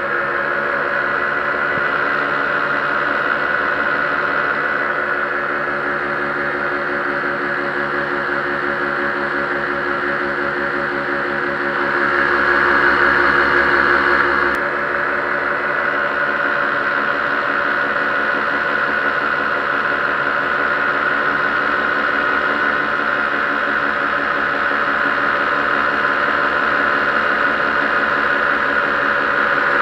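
Paramotor engine and propeller running steadily at cruise throttle, a constant drone with a louder stretch about halfway through that drops back suddenly.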